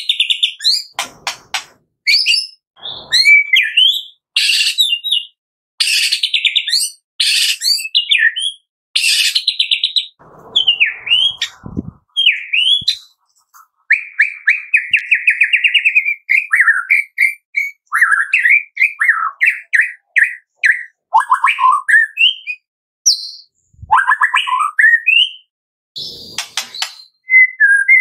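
White-rumped shama singing loud, varied phrases of sharp whistles, chips and quick sweeping notes in short bursts with brief pauses between them, including a rapid trill about halfway through.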